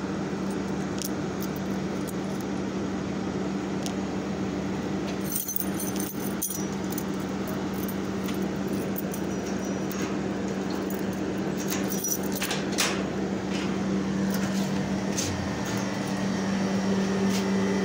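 Keys jangling and clicking in the hand and at a door, over a steady machine hum. A few sharp clicks come about five to six seconds in and again around twelve seconds.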